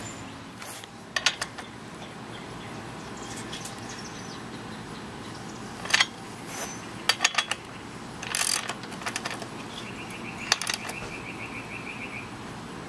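Hand socket ratchet clicking as transmission cooler-line fittings are screwed into a new radiator, with scattered sharp metal clinks of the tool and fittings. Near the end comes a quick even run of ratchet clicks lasting about two seconds.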